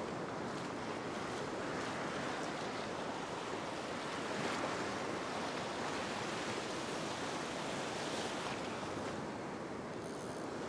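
Ocean surf breaking and washing in over the shallows, a steady rush of water that swells and eases as each wave comes in.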